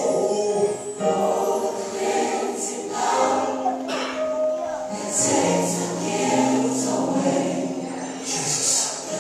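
Gospel music with a choir singing long held notes.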